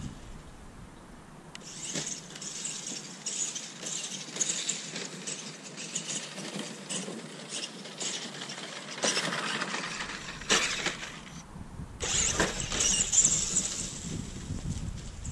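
Radio-controlled Tamiya Super Clod Buster monster truck driving on grass, its twin Tamiya Super Sport TZ electric motors and geartrain whining in spurts as the throttle is worked. The sound is loudest near the end as the truck comes back toward the camera.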